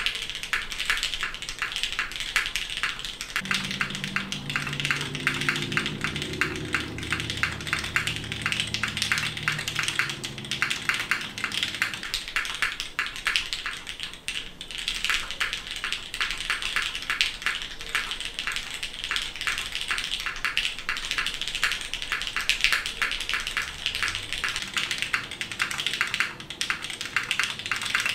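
Steady, fast typing on a custom mechanical keyboard with lubed SP-Star Meteor White switches on an aluminium plate, in a case with a polycarbonate bottom and DCS-profile keycaps: a dense run of keystroke clicks, with a brief pause about halfway through.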